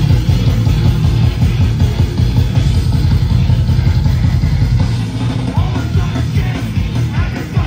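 Hardcore punk band playing live at full volume: heavy guitars, bass and drums pounding.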